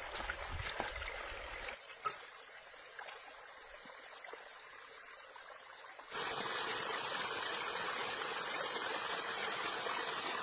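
Flowing river water, a steady rushing hiss. It is fainter for a few seconds, then suddenly louder and fuller about six seconds in.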